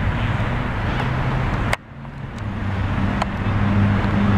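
Steady outdoor rumble and hiss, strongest in the low end, broken by a sharp click a little under two seconds in, after which the sound drops out sharply and builds back up over the next two seconds.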